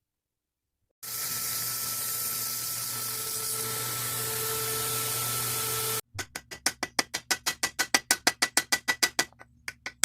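A power tool runs steadily for about five seconds and cuts off sharply. Then a small hammer taps fast and evenly on metal, about ten light blows a second with a short pause near the end, peening over the brass pin that holds the knife handle.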